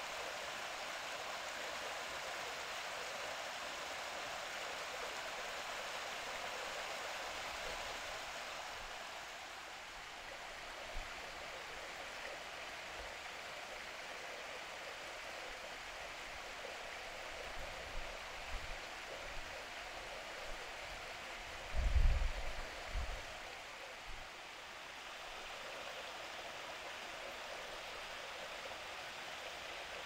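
Small rocky stream running and trickling over stones, a steady rushing hiss. A few brief low thumps break in about two-thirds of the way through, the loudest around 22 seconds in.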